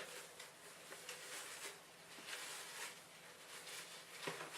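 Tinsel rustling and crinkling softly as it is wound by hand around a bottle.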